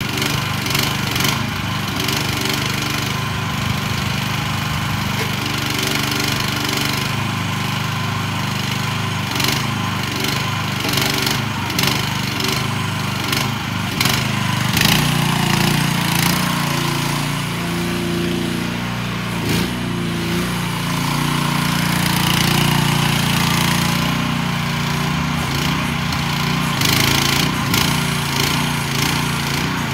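AGT QH13R mini excavator's 420cc single-cylinder gas engine running steadily while the boom, arm and bucket are worked. About halfway through, the engine's note shifts and runs a little louder.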